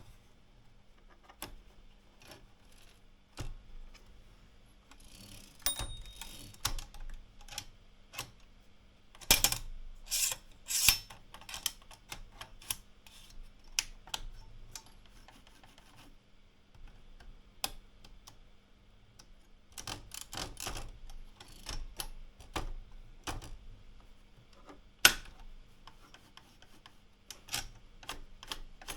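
AEG Olympia Regina de Luxe portable typewriter being handled and worked: irregular mechanical clicks and clunks, some in quick clusters, others single and spaced out.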